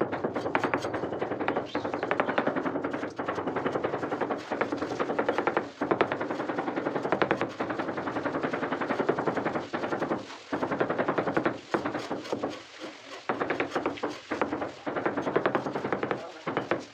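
Fast, continuous hammering: a rapid train of hard knocks, machine-like in its regularity, with a few brief breaks in the second half.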